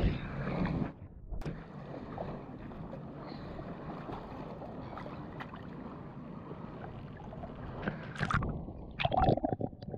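Muffled, steady wash of shallow water at the shoreline, with some uneven splashing near the end as a small bream is lowered into the water and let go.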